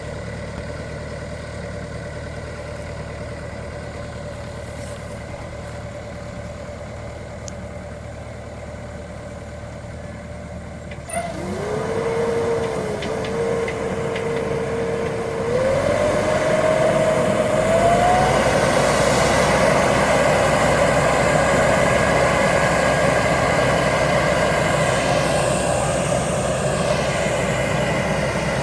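A motorcycle engine idling with a steady low hum. About eleven seconds in it picks up with a rising whine and then runs on louder and steady.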